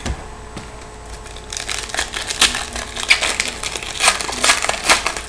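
Foil wrapper of a trading-card pack crinkling and tearing as it is pulled open by hand, a run of dry crackles starting about a second and a half in.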